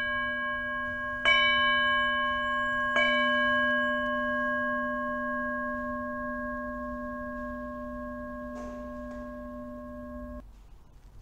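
A single-pitched altar bell is ringing, struck again about a second in and once more near three seconds. The tone fades slowly and is cut off short about ten seconds in. It is a sanctus bell rung at the elevation of the consecrated bread and wine, after the Amen that closes the eucharistic prayer.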